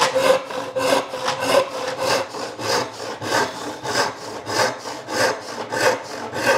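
Hand panel saw cutting through a board of dry wood, its strokes coming in a steady rhythm of about three a second.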